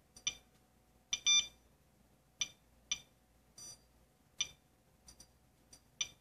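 SOEKS-01 Geiger counter giving about ten short electronic chirps at irregular intervals, one near the middle a little longer. The chirps are the counter registering radiation from a smoke detector's radioactive source while it reads high radiation.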